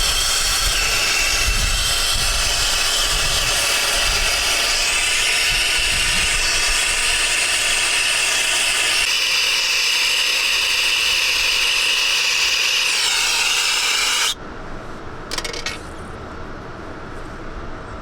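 Gas brazing torch flame hissing loudly and steadily while refrigerant pipe is welded for an air-conditioner outdoor unit. The hiss stops abruptly about fourteen seconds in, leaving a quieter background with one short sound soon after.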